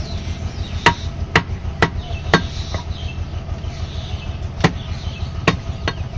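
Butcher's cleaver chopping beef on a wooden log chopping block: a run of five sharp chops about two a second, a pause of a second or two, then three more.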